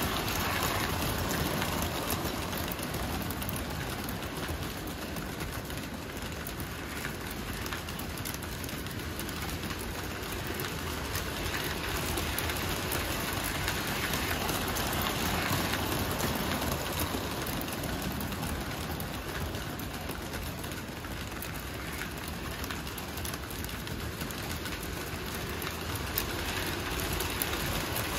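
Two Lionel 726 Berkshire O-gauge toy steam locomotives double-heading a freight train, running on three-rail tubular track with a steady, dense rolling clatter of wheels and motors. The sound swells each time the train passes close, near the start, in the middle and near the end.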